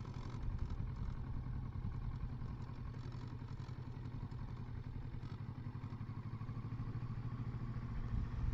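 Kawasaki Versys 650's parallel-twin engine running steadily at low revs as the motorcycle rolls slowly, getting a little louder near the end.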